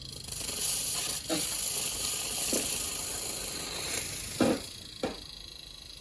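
A steady hiss of gas escaping under pressure for about five seconds, fading out near the end, with a few short knocks along the way.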